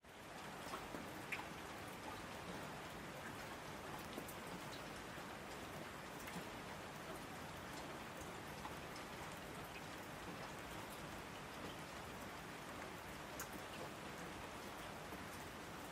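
Steady rain: an even, soft hiss with scattered faint drop ticks.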